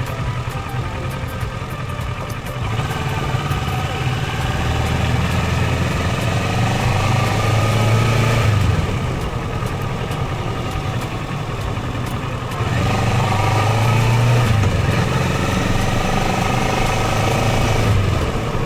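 Kawasaki Versys 650 parallel-twin engine running at idle, its note rising a little and settling back twice.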